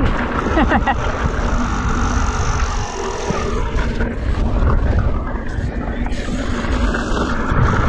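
Wind buffeting a helmet or chest camera's microphone over the rumble and rattle of a mountain bike rolling along a dirt trail.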